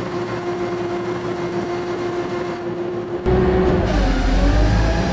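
Boom lift engine and hydraulic pump running steadily with a held whine. A little over three seconds in, the sound jumps louder and deeper and the whine dips in pitch and recovers: the engine is loading up as the hydraulic pressure peaks.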